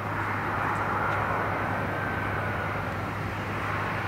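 Airbus A320-214's twin CFM56 jet engines on the landing rollout after touchdown: a steady rushing engine noise with a faint whine that slowly drops in pitch.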